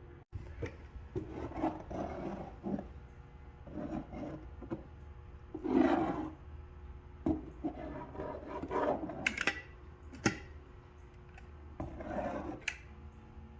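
Irregular rubbing and scraping sounds with several sharp clicks.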